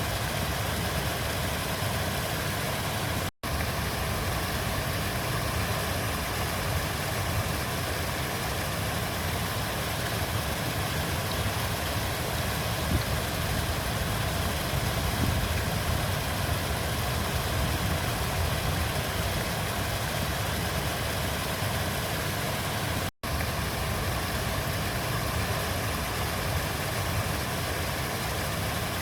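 River water flowing in a steady rush, with a deep rumble underneath. Twice, about three seconds in and again about twenty-three seconds in, the sound cuts out completely for an instant.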